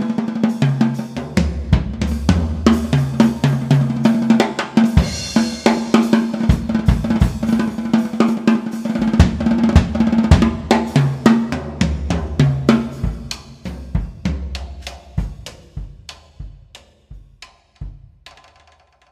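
Jazz drum kit played alone: rapid strokes on snare, tuned toms and bass drum with cymbals, growing softer over the last few seconds and fading almost to nothing at the end.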